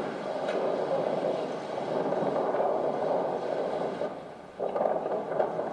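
Soundtrack of a film playing over a hall's loudspeakers: a steady rumbling noise that dips briefly about four and a half seconds in.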